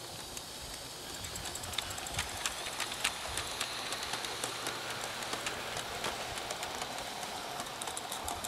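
Small live-steam garden-railway locomotive hauling a train of wagons past: a steady hiss under irregular sharp clicks from the wheels on the track, which grow louder and more frequent about a second and a half in.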